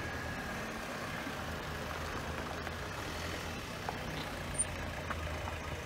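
Steady low rumble of motor vehicles, with a few faint clicks.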